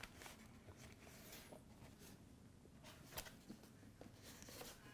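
Faint handling sounds of a cardboard camera box being turned over on a wooden tabletop: soft rubbing and a few light taps, the sharpest a little after three seconds in.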